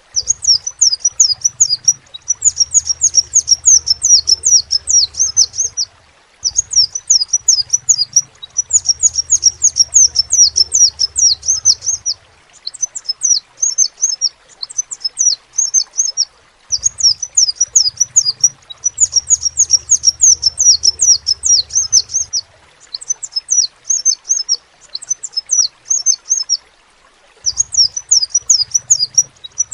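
Crimson sunbird (sepah raja) singing: rapid, high-pitched twittering trills in phrases a few seconds long, broken by short pauses about every four to six seconds.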